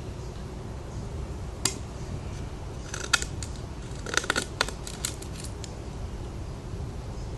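Spyderco Paramilitary 2 folding knife in use, making sharp snipping clicks. One comes about a second and a half in, a small cluster follows around three seconds, and a quick run comes between four and six seconds. A steady low hum runs underneath.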